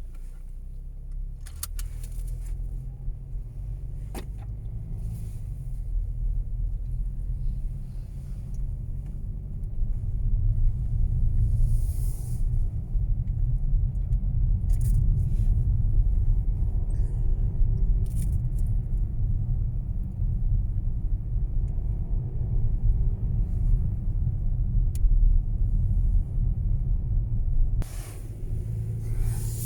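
Mercedes All-Terrain driving with a steady low road rumble that grows stronger about a third of the way in. Scattered light rattling clicks come through over it, the unwanted rattle the owner is trying to track down.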